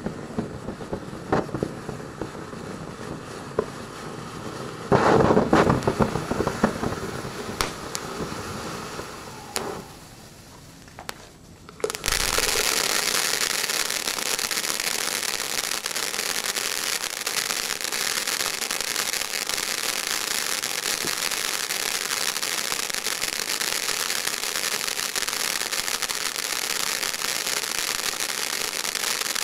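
Shogun 'Zip and Zing' 200 g fountain firework burning. For the first twelve seconds it hisses unevenly with scattered pops, loudest about five seconds in. Then it breaks into a dense, steady, loud crackle of crackling stars.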